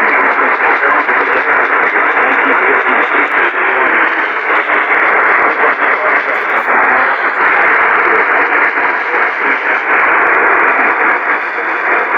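AM radio reception dominated by a steady, loud hiss of static, squeezed into the narrow band of broadcast audio.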